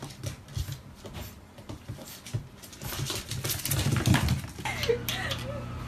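A puppy and a cat play-fighting on a tile floor: irregular patter and tapping of paws, louder scuffling about three to four seconds in, with small dog sounds.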